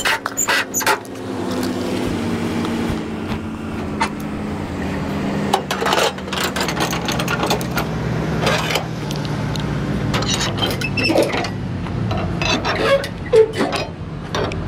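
Truck engine running, its pitch sliding down over the first few seconds and then holding steady, with scattered clicks and rattles.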